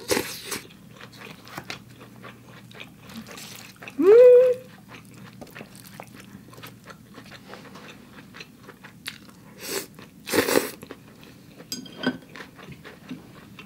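Person eating rice vermicelli noodles: wet chewing with many small clicks, louder slurps near the start and about ten seconds in, and a short rising "mm" hum about four seconds in.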